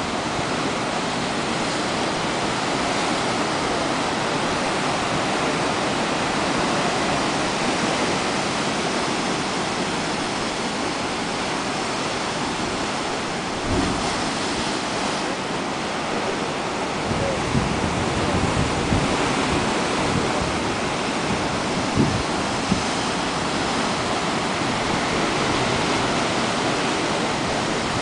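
Atlantic surf breaking and washing over granite rocks in a steady rush, with a few short low thumps in the second half.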